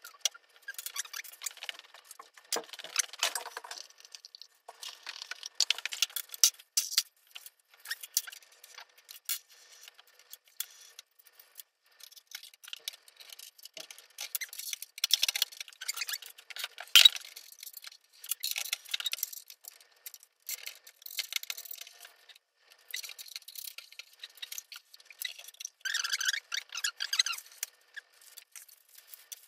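Unpacking 3D printers by hand: plastic bags and packaging crinkling and rustling, with irregular small clicks and clinks of parts and hardware being handled.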